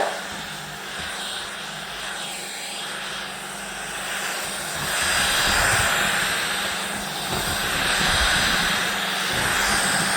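Vacuum cleaner running with a steady motor whine and hum, its loudness swelling and easing a couple of times.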